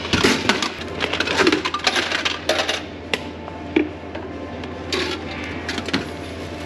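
Old bottle vending machine dispensing a glass Coca-Cola bottle: a run of clunks and rattles over the first three seconds or so. Then a few single knocks and clicks as the bottle is taken out of the delivery slot, over a steady low hum.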